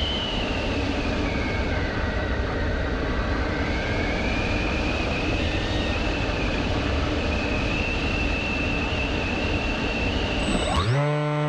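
Onboard audio from a small electric drone in flight: rushing wind and propeller noise with a faint motor whine that falls and then rises in pitch. Near the end it changes abruptly to a steady, lower buzz.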